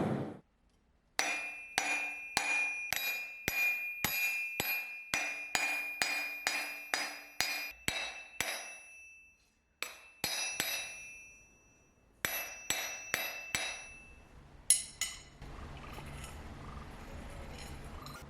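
Hammer blows on metal, about two a second in a long run and then in shorter groups, each strike leaving a bright ringing tone. A faint steady low hum comes in near the end.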